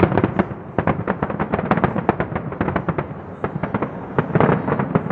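Large fireworks display going off in a rapid, continuous barrage of overlapping bangs and crackling bursts, several a second.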